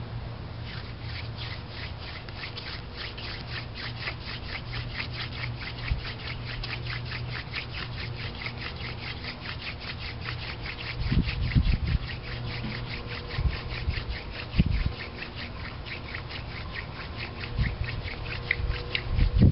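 A hand-drill fire set being worked: a cattail spindle twirled back and forth between the palms, its tip grinding in a longleaf yellow pine fireboard, giving a fast, even rasping of several strokes a second. A steady low hum runs underneath, and a few dull thumps come in the second half.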